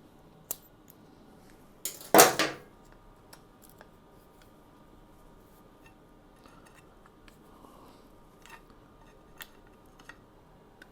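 Small metal clicks and clinks from tools and brake parts being handled, with one louder clattering scrape about two seconds in.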